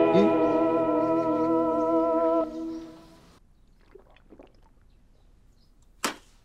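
Drama background music: a held, slightly wavering melody over sustained chords, which stops about two and a half seconds in and fades away. After that it is quiet apart from a few faint small sounds and one short sharp click near the end.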